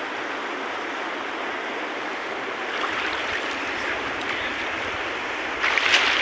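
Steady rushing and lapping of river water close to the microphone, with a short burst of splashing near the end.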